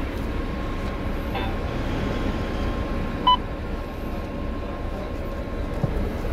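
City bus engine idling as a steady low rumble, with a short electronic beep about three seconds in and a fainter one about a second and a half in.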